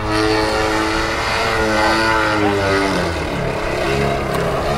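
DLE 55 single-cylinder two-stroke petrol engine of a Sebart 2.2 m aerobatic RC plane, running in flight with the throttle working. Its note drops about two seconds in and climbs again near the end.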